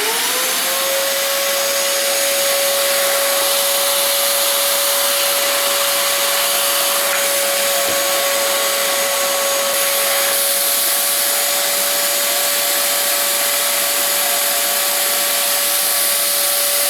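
Shop vacuum starting up, its motor whine rising in pitch over the first half second, then running steadily with a loud whine and a rush of air as it pulls suction through a Festool vacuum clamp pad.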